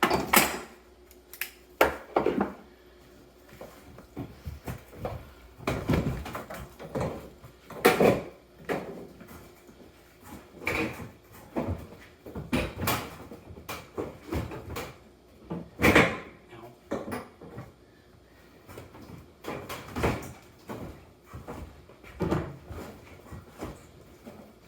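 Irregular knocks, bumps and clatter of tools and a tabletop water heater being handled during its removal: a dozen or so separate clunks with quiet gaps between, the loudest near the start and about two, eight and sixteen seconds in.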